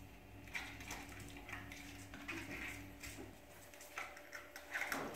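Five-week-old Labrador puppies moving about and playing: scattered light clicks and taps with a few faint high squeaks, busier in the second half.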